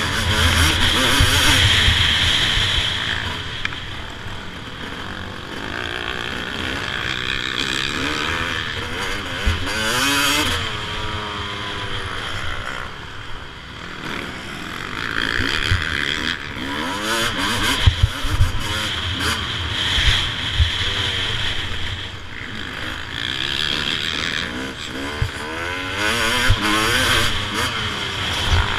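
Onboard sound of a 2007 Suzuki RM250's single-cylinder two-stroke engine being ridden hard, revving up and down through the gears again and again, with the pitch rising repeatedly as it accelerates out of the turns. Scattered thumps come from the bike hitting bumps in the track.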